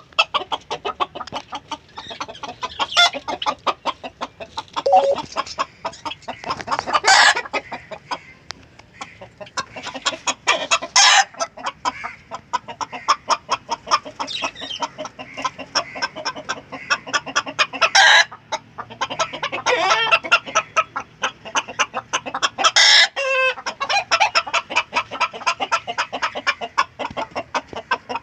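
A flock of Indian country chickens (nattu koli) clucking and calling continuously, many birds overlapping, with louder single calls standing out every few seconds.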